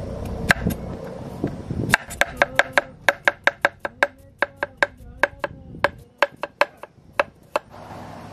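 Meat cleaver slicing a cucumber on a cutting board. One chop comes about half a second in, then a quick run of sharp chops at about five a second, each with a short ring from the blade. The chops slow and stop shortly before the end.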